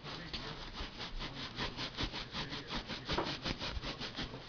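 Cat's fur being rubbed rapidly back and forth to build up static, a rhythmic scratchy rubbing of about six strokes a second.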